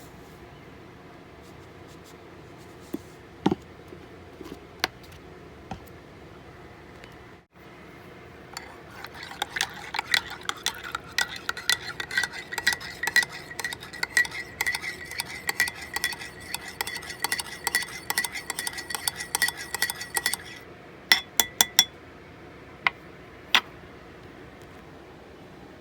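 Metal spoon stirring coffee in a mug: rapid, continuous clinking against the sides with a ringing tone for about twelve seconds, then a few separate sharp clinks.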